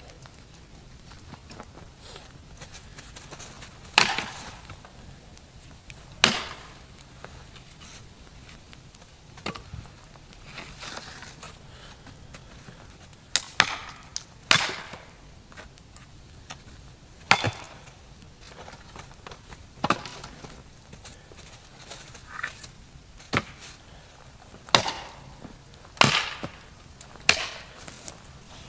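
Wood being chopped: about a dozen sharp strikes, irregularly spaced one to three seconds apart and coming closer together toward the end.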